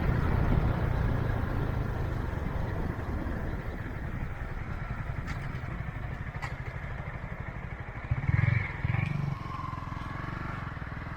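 Motorcycle engine running and slowly growing quieter, with a brief louder burst a little past eight seconds.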